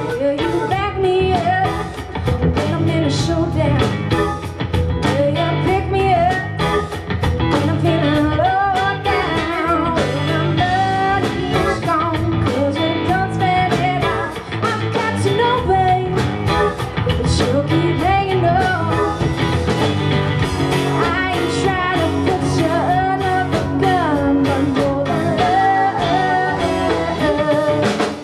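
Live rock band playing a song: a woman sings the lead over guitars and a steady drum beat.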